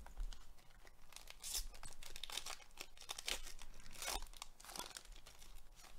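Foil wrapper of a Panini Mosaic baseball card pack being torn open and crinkled by hand: irregular crackling and tearing, loudest about a second and a half in and again at about four seconds.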